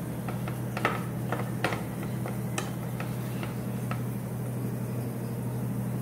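A spatula stirring and scraping cooked green peas rice in a non-stick pan: a string of light taps and clicks through the first four seconds, over a steady low hum.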